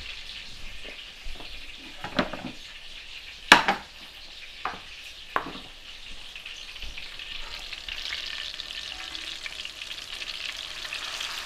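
Chapli kababs frying in hot oil in an enameled cast-iron pan: a steady sizzle, a little stronger toward the end. A few short sharp knocks come in the first half, the loudest about three and a half seconds in.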